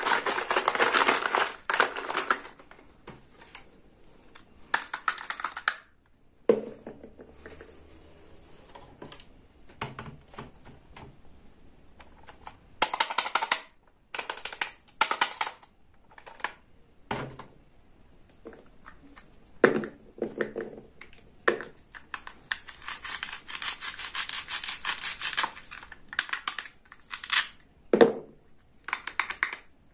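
Hard plastic toy kitchen pieces being handled: scattered clicks, taps and rattles, short scraping bursts and a few sharper knocks.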